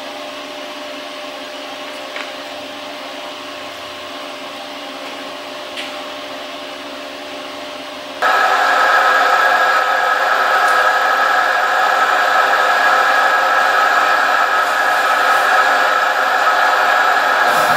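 Fadal VMC 30x16 vertical machining center running: a steady motor and fan hum with several steady tones. About eight seconds in it jumps abruptly louder, with a stronger steady whine, as the machine runs its program with the spindle turning.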